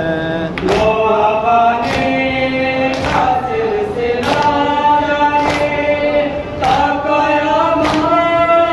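A Shia noha (mourning elegy) sung by male voices in long, sliding notes, with the mourners' open-handed chest-beating (matam) landing about once a second in time with the chant.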